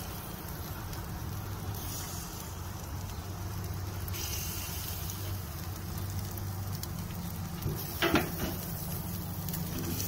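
Butter-topped lamb chops sizzling steadily on a hot grill grate, over a steady low hum. A brief knock about eight seconds in.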